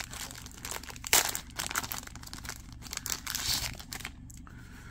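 Clear polypropylene plastic bag crinkling as a phone is slid out of it. The crackles come irregularly, with louder bursts about a second in and around three and a half seconds.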